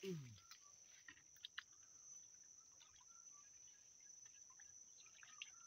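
Faint, steady high-pitched insect chirring, crickets, with a few faint scattered clicks. A short falling voice sound comes right at the start.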